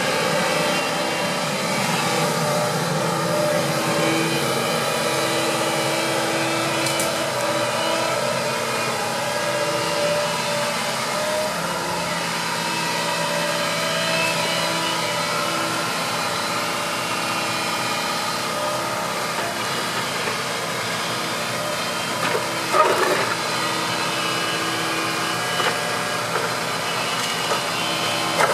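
Hitachi compact excavator running: a steady diesel engine and hydraulic sound while the boom and grapple work, with the engine note shifting about twelve seconds in. A short loud clatter comes about three-quarters of the way through.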